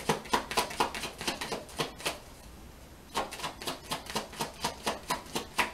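A deck of oracle cards being shuffled by hand: a quick run of card slaps, about four or five a second, that stops about two seconds in and starts again a second later.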